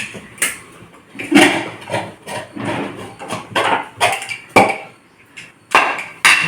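Pressure cooker being opened: a series of irregular metal clanks and knocks as the lid and its parts are handled.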